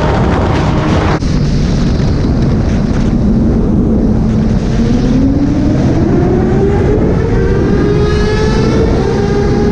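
Superbike engines at highway speed, heard on board a moving sport bike through a steady rush of wind and road noise. The engine note holds level, then climbs steadily in pitch over the second half as a bike accelerates.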